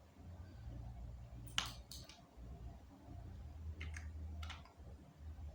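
Computer mouse and keyboard clicks: two pairs of short, sharp clicks about two seconds apart, over a low steady hum.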